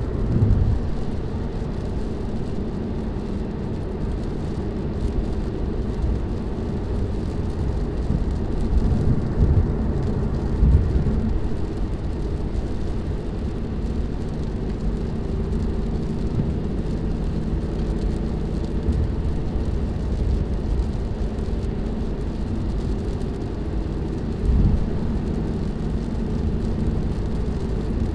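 Cabin noise of a 2018 Ford Mustang GT cruising at about 60 mph on a wet highway: steady low road and tyre rumble with the 5.0-litre V8 droning underneath. A few brief low thumps stand out, near the start, about 11 seconds in and about 25 seconds in.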